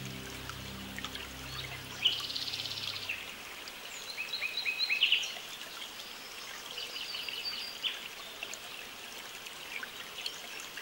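Songbirds singing over the steady rush of a river: a fast trill about two seconds in, then further chirping phrases. Low steady tones fade out in the first few seconds.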